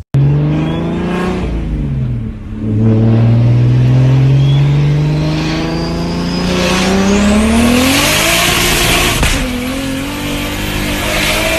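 A car engine under hard acceleration through the gears with no-lift (flat-foot) shifts, heard from inside the cabin. The revs climb, fall as a gear goes in about two seconds in, then climb again for several seconds under a loud rushing noise. About nine seconds in they drop sharply with a crack at the next shift.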